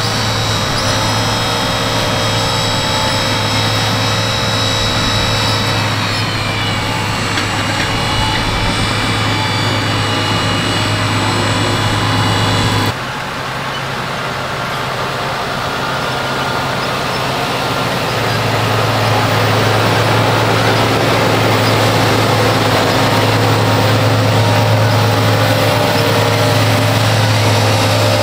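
Fendt 939 Vario tractor engine running steadily under load while pulling a seed planter, with a high whine over the engine hum. About 13 seconds in the sound changes abruptly and the whine drops away, then the engine grows louder over several seconds as the tractor comes closer.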